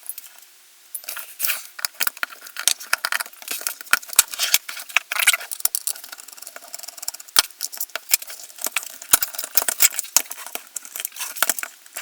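Light metal and plastic parts of an airsoft MP5 clicking, clinking and rattling as it is taken apart by hand toward its gearbox. After a quiet first second there is a dense, irregular run of sharp little clicks.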